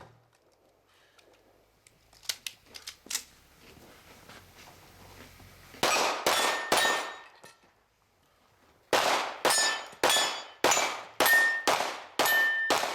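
Pistol shots at steel targets: three in quick succession, then after a short pause a rapid string of about eight more, many followed by the ring of a struck steel plate. A few light clicks and knocks come before the shooting.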